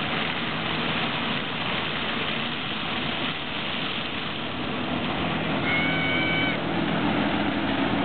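Claas Lexion 450 combine harvester running under load as it harvests maize, its engine and corn header making a steady, dense mechanical din. A short high whistle-like tone sounds for under a second about six seconds in.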